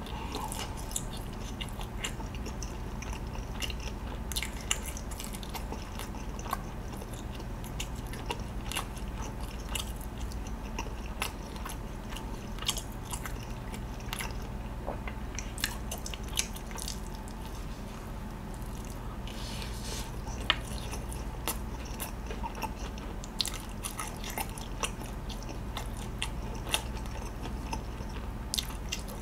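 Close-miked chewing of charcoal-grilled chicken skewer meat: irregular soft clicks and smacks of the mouth, with now and then a crunch, over a faint steady hum.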